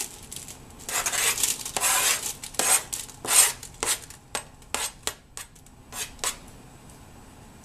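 Kitchen knife scraping chopped onion off a flexible plastic cutting board into a slow cooker: several scrapes, then a run of short light taps and clicks.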